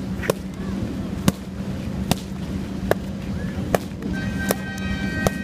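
Arnis stick striking padded focus mitts in a steady drill: sharp smacks about one every 0.8 seconds, seven in all, over a steady low hum.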